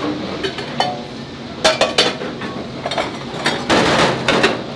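Stainless steel bowls clinking and clattering as they are washed and stacked into a dish rack, with ringing knocks about a second and two seconds in. A brief hiss comes near the end.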